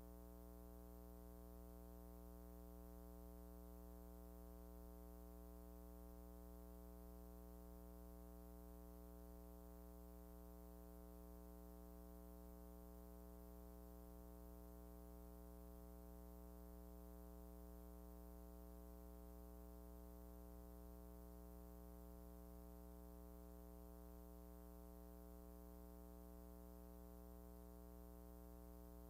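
Near silence, with a faint steady electrical hum made of many evenly spaced overtones, unchanging throughout.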